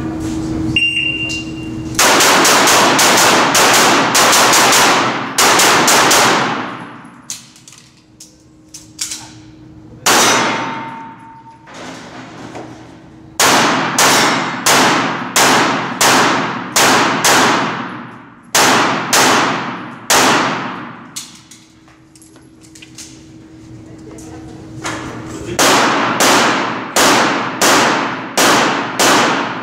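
A shot timer beeps once briefly about a second in, then a CZ75 SP-01 Shadow 9x19mm pistol fires rapid strings of shots with pauses between them, each shot echoing in the indoor range hall.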